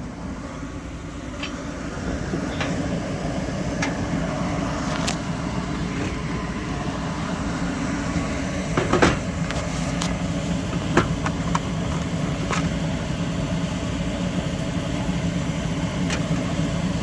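Goodman gas furnace running with its burners lit and blower on: a steady low rumble, with a few sharp clicks and knocks scattered through it.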